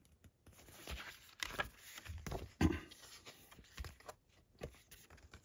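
Blu-ray packaging being handled: uneven rustling and scraping with a few light knocks, strongest in the middle.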